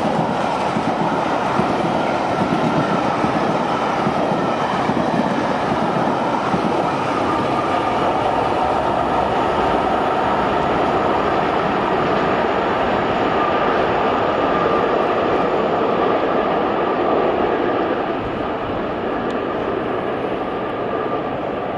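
A steam-hauled train, behind the A1 Pacific locomotive Tornado, passing close by, with the steady rumble of wheels and coaches on the rails and a faint ringing tone from the wheels. It gets quieter a few seconds before the end as the train draws away.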